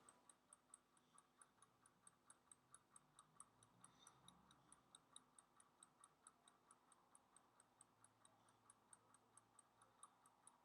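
Near silence with faint, even, rapid ticking, about four to five ticks a second.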